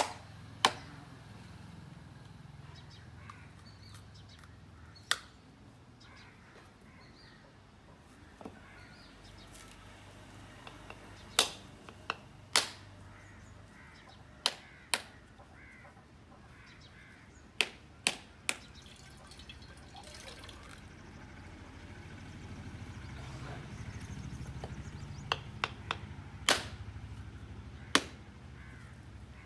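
Sharp knocks of a heavy knife blade striking the hard shells of dry, husked coconuts to crack them open. The knocks come singly and in quick twos and threes at irregular intervals.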